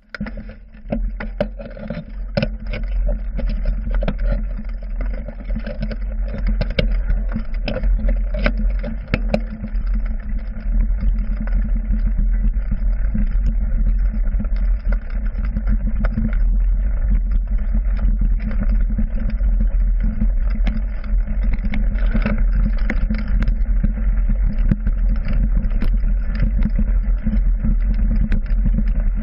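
Mountain bike riding over a dirt forest trail, heard from a handlebar-mounted GoPro: a steady low rumble from the tyres and vibration, with constant rattles and knocks from bumps. It grows louder over the first few seconds as the bike picks up speed, then stays level.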